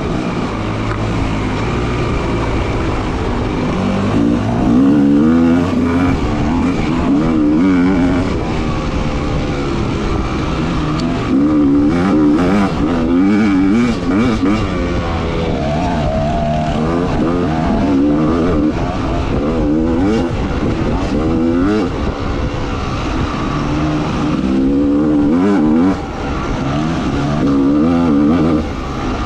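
Motorcycle engine running hard and revving up and down continuously as the throttle is worked.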